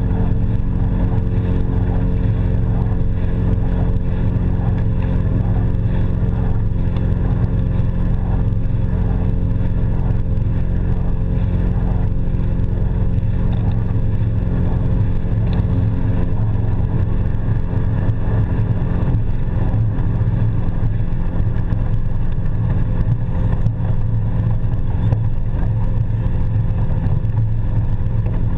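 Aluminium boat's engine running steadily under way: a constant engine hum with a heavy low rumble of wind and water against the hull.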